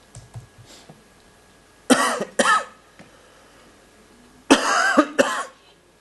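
A person coughing: two double coughs, the first about two seconds in and the second about four and a half seconds in, each starting abruptly and loud. Before them come a few faint clicks.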